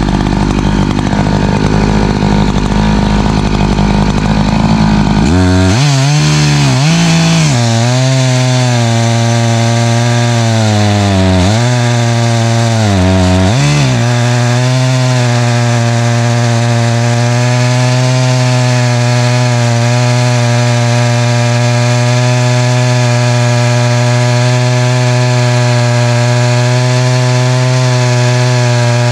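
Echo CS590 Timberwolf two-stroke chainsaw running under load as it rip-cuts a black ash log lengthwise into slabs. Its pitch drops sharply about five seconds in, dips and recovers a few times as the saw bogs in the cut, then holds steady.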